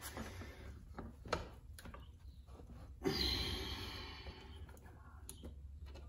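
A few light knocks of the GSX-R rear wheel and brake parts being handled as the wheel is worked into line on the swingarm, then a breathy sigh about three seconds in that fades over a second or so, over a steady low hum.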